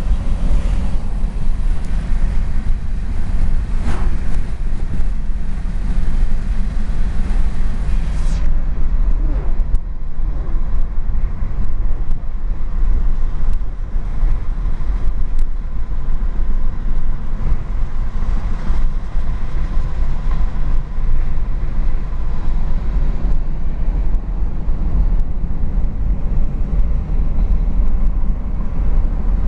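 Steady low rumble of road and wind noise inside a car moving at highway speed. The high hiss drops away about eight seconds in.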